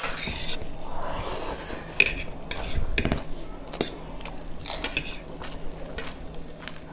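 Cutlery clinking and scraping against plates in a run of short, irregular clicks, as people eat quickly.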